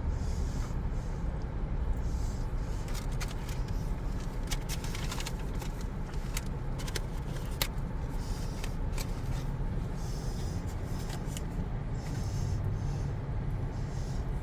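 Fast-food paper packaging rustling and crackling as the meal is unwrapped and eaten, with a cluster of sharp crinkles from about three to eight seconds in, over a steady low rumble.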